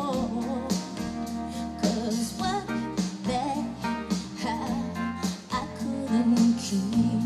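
Live band playing a slow pop song: a regular drum beat under sustained bass, keyboard and electric guitar chords, with a wavering lead melody bending up and down in pitch over them.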